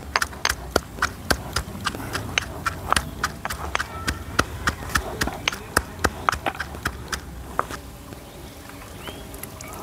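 A quick, irregular series of sharp knocks or taps, about three to four a second, that stops a couple of seconds before the end.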